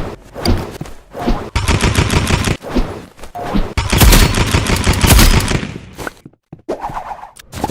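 Paintball marker firing in rapid strings of shots. The first burst comes about a second and a half in, and a longer, louder burst follows around four to five seconds in.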